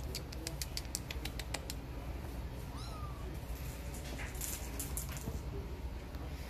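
Quick light clicks and scuffs of kittens' claws on a fabric-covered cat tree, with one short high kitten mew about three seconds in.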